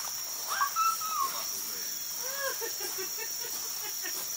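Steady high-pitched chorus of insects, with a few short pitched calls rising over it about a second in and again near the middle.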